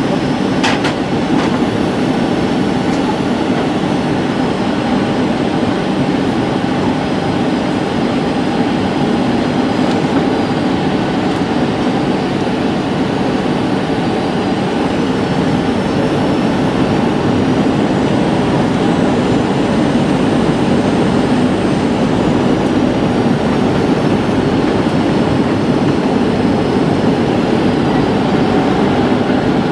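Steady cabin noise inside a Boeing 737-700 in flight: an even rush of airflow and the drone of its CFM56-7B turbofan engines, with faint high whining tones above it.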